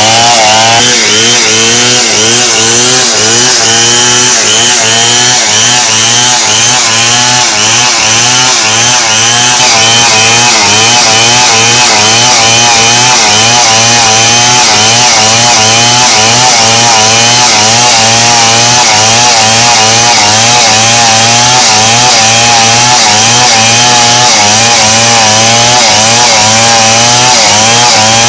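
Two-stroke chainsaw running at full throttle, ripping lengthwise down through a log to cut planks, the engine note wavering quickly up and down under the load of the cut.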